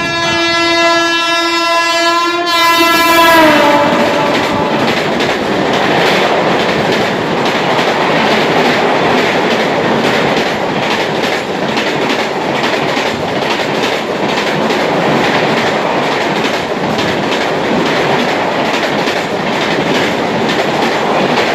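An Indian Railways WAP-7 electric locomotive's horn honking in one long, steady chord for about the first three seconds, then dropping in pitch as the locomotive speeds past. After it, the express train's LHB coaches rush by at speed with a continuous clatter of wheels over the rail joints.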